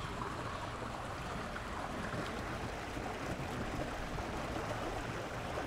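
Steady rush of water running into a pond through a small stone inlet channel from a brook.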